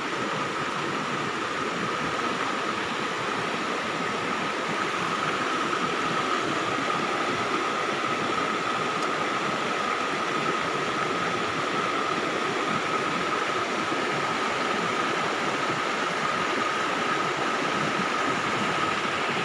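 Steady rushing of a shallow, fast-flowing river running over stones, with a thin steady high tone running through it.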